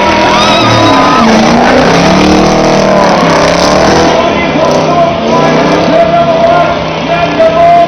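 V8 race car engines revving hard, their pitch falling and climbing again as the cars power around a dirt track, over background music.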